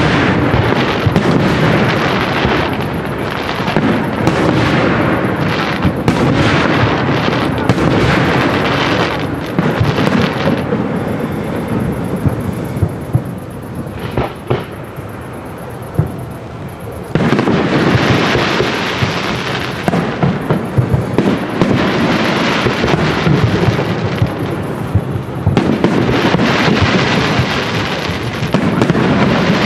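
Professional aerial fireworks display, shells bursting in rapid succession. The bursts thin to a lull in the middle, then pick up abruptly again a little past halfway.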